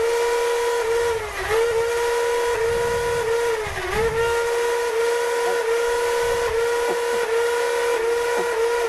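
Motor-driven flywheels of a LiPo-powered Nerf blaster spinning with a steady high whine as darts are fired through them. The pitch sags briefly with each dart, about twice a second, with two deeper sags.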